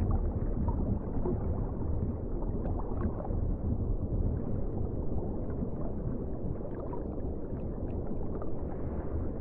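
Underwater ocean ambience: a steady low rumble of water, with a few faint short ticks scattered through it.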